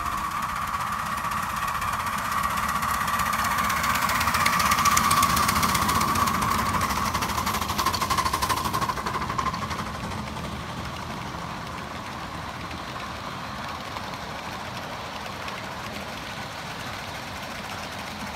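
Ridable-scale live steam train rolling past: fast, steady clatter of many small freight cars' wheels on the rails. A steady high whine runs over it, loudest midway and fading about ten seconds in.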